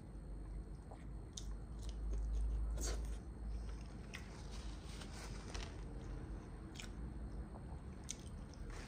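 A person chewing stuffed collard green rolls (kara lahana sarması) close to the microphone: soft, wet chewing with irregular mouth clicks and smacks about once a second.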